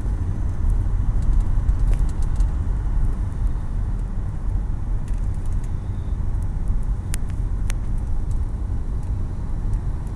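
Car cabin noise while driving slowly: a steady low rumble of engine and tyres, with a couple of light clicks about seven seconds in.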